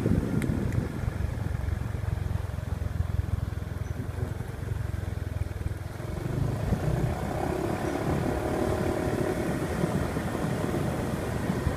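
Riding on a small motorbike: wind noise on the microphone over the hum of its engine, with a steadier engine note coming up about six seconds in.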